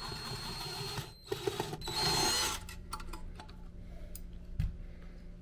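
Cordless drill-driver running in short bursts, backing out the screw that holds an Instant Pot's pressure sensor; the loudest run, with a rising whine, comes about two seconds in. After that, faint handling clicks and one light knock.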